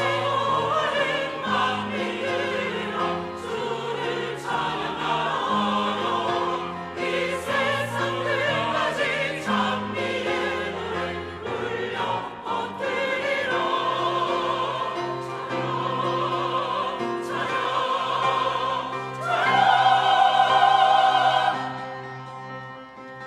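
Church choir singing an anthem in parts with wide vibrato. It builds to a loud, held climax near the end, then the singing drops away.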